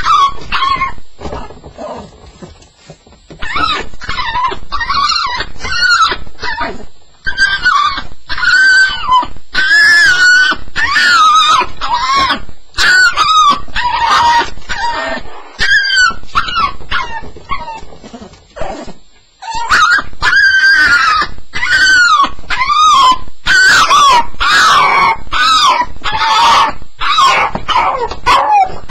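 Staffordshire bull terrier crying: high-pitched whines and yelps that bend in pitch, repeated almost without pause and easing briefly twice. This is typical of a dog left alone on its first night.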